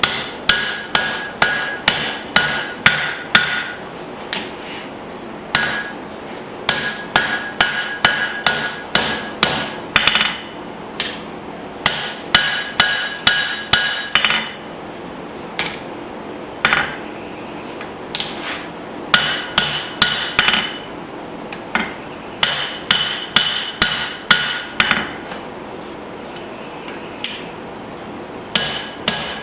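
Hand hammer striking a hot spring-steel hatchet head on an anvil in runs of quick blows, about two to three a second, with short pauses between runs. Many blows leave a bright metallic ring.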